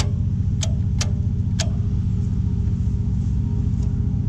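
Steady low drone of a ship's diesel machinery running, with a few sharp clicks in the first two seconds.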